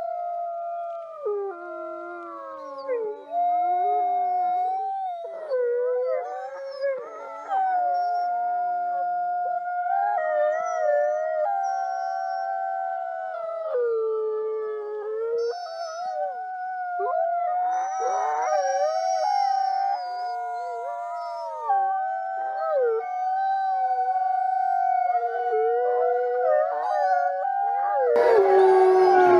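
Two wolves howling together in chorus. Long held howls overlap at different pitches, some sliding up and down. Near the end the sound changes abruptly to a louder howl over a hiss.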